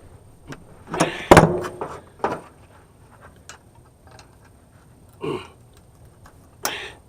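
Sharp metal clicks and knocks as brass and copper faucet parts are worked with cutters and handled, loudest in a short clatter about a second in, then a few single clicks.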